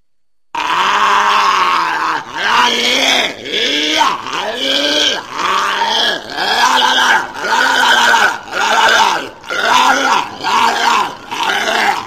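Walrus calling: one long call about half a second in, then a quick run of short grunting calls, each rising and falling in pitch, about one and a half a second.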